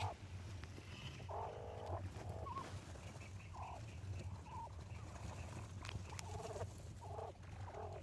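A huddled group of quail giving short, soft calls several times, with a quick run of faint high twitters a few seconds in.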